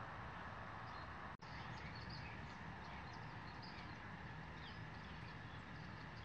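Faint steady background hiss with scattered distant bird chirps; the sound cuts out for an instant about a second and a half in.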